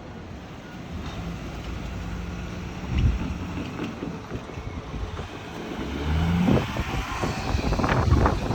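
Train approaching and passing, a low rumble building in loudness, with sharp wheel clanks over the rail joints in the last couple of seconds.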